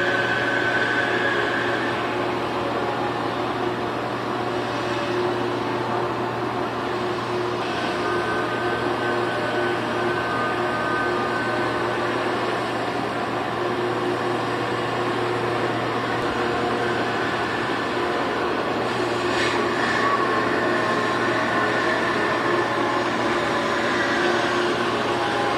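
Steady engine drone: a constant low hum with several long held tones above it, and a short hiss about nineteen seconds in.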